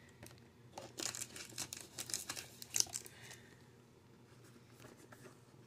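Plastic packaging crinkling and rustling as a Pokémon card box is unpacked by hand: a run of small crackles that thins out after about three seconds.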